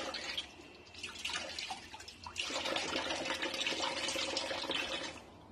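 Kitchen tap running a gentle stream over a crab shell held in the hand, the water splashing into a plastic basin in the sink. The flow sounds softer at first with small taps and drips, grows steadier and louder about two and a half seconds in, then fades just before the end.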